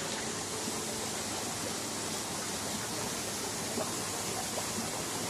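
Steady rush of water in sandworm (polychaete) culture tanks.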